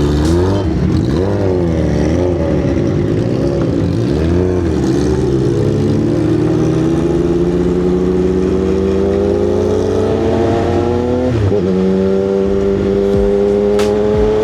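2025 CF Moto 675SS three-cylinder engine, fitted with an aftermarket exhaust, pulling away. The revs rise and fall unevenly for the first few seconds, then climb steadily through one gear. There is an upshift about eleven seconds in, after which the revs climb again.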